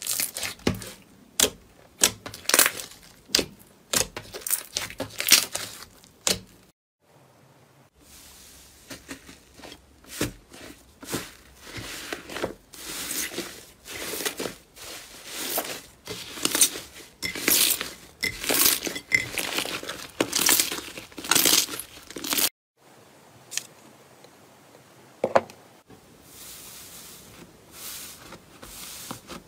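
Hands pressing, squeezing and poking slime: quick sharp sticky pops and clicks, then a long run of squelching, tearing strokes, breaking off briefly twice and ending fainter.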